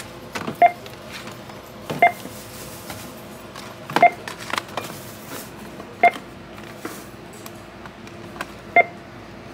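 Checkout barcode scanner beeping as a cashier scans items: five short two-tone beeps about two seconds apart, with light knocks of goods being handled between them.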